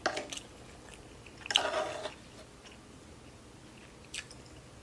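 Close-miked eating sounds: biting and chewing food, with a louder crunchy burst about one and a half seconds in and a short click near the end.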